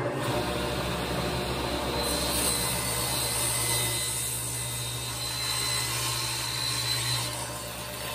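Table saw running with a steady motor hum, ripping a strip from a piece of scrap wood. The blade is in the cut from about two seconds in until about seven seconds in, then spins free.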